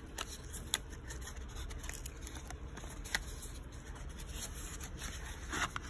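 Small cardboard cream carton handled and opened by hands in plastic gloves: faint rubbing and scraping with a few small clicks, the last and loudest near the end, over a low steady hum.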